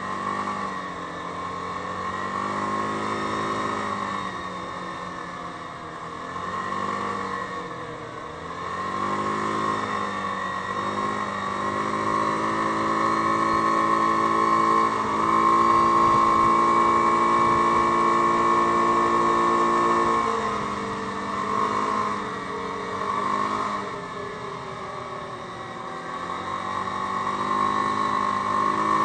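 Yamaha Grizzly 550 ATV's single-cylinder four-stroke engine running under way. Its pitch rises and falls again and again, is held high and steady for several seconds around the middle, then drops and climbs once more.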